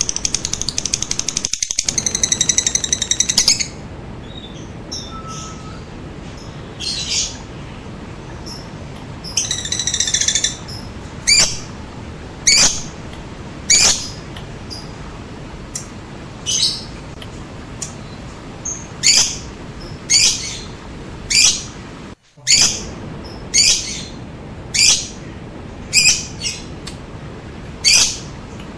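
Lovebird calling. A fast chattering trill in the first few seconds and another short burst around ten seconds in, then single shrill chirps repeated roughly once a second for the rest, over a steady low hiss.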